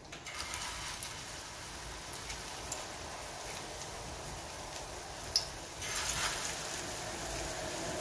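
Gram-flour batter for green-onion pakoras sizzling as it is dropped into hot oil in a frying pan, with a few faint clicks. The sizzle grows louder about six seconds in as a second dollop goes into the oil.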